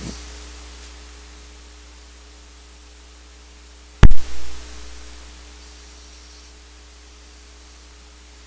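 Steady low hum and hiss, broken about four seconds in by one loud pop and a smaller thump right after: the power-on transient of a Eurorack modular synthesizer as its new linear power supply is plugged in. The hum and hiss carry on after the pop.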